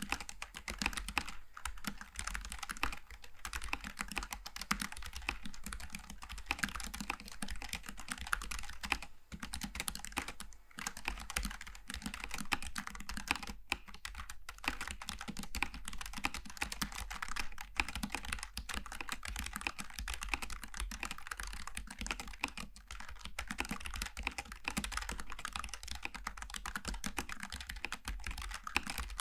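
Steady fast typing on a Logitech G915 TKL low-profile mechanical keyboard with tactile switches, a dense run of keystroke clicks with a few brief pauses.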